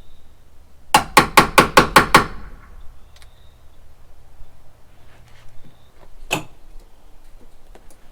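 Hammer blows: a quick run of seven strikes about a second in, then one more single strike later.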